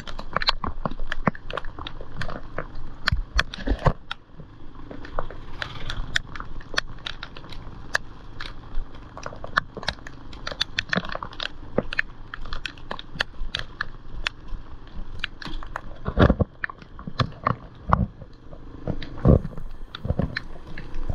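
Raindrops striking the action camera's housing: dense, irregular sharp clicks and taps over the low steady rumble of the Yamaha Serow 225's single-cylinder engine and the wind. A few heavier thumps come in the last third.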